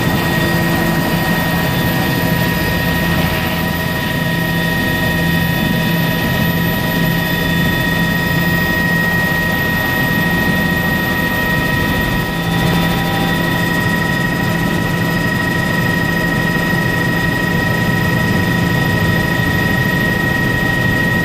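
Helicopter running at flight power, heard from aboard, as it lifts off and climbs: a steady high whine over a deep drone.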